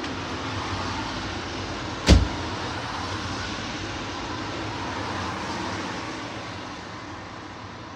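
Steady rushing machine-like noise, with one sharp knock about two seconds in; the noise eases slightly near the end.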